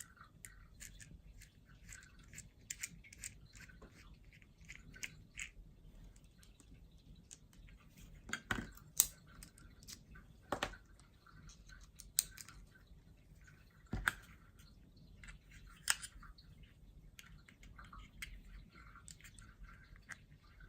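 Small plastic clicks and taps as a Toyota Yaris remote key fob and its plastic shell are handled and prised apart, with a few louder snaps in the middle.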